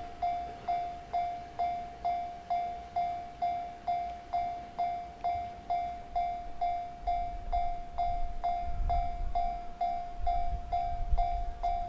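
Japanese railway level-crossing warning bell ringing steadily, about two strikes a second, each strike sounding one clear tone that quickly fades. From about halfway, a low rumble of a train rises beneath it.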